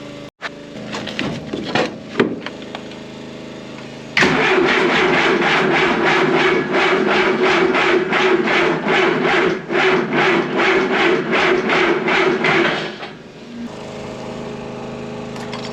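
John Deere diesel on an Ingersoll Rand portable compressor cranking on its electric starter for about nine seconds in a slow, even rhythm of compression pulses, then stopping without catching: the starter cannot turn the cold engine over fast enough to start. Another engine runs steadily underneath.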